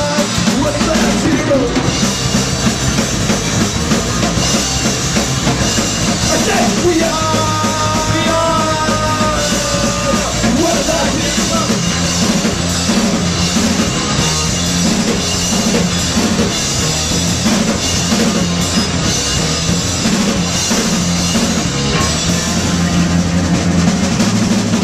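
Punk rock band playing live: electric guitar, electric bass and drum kit.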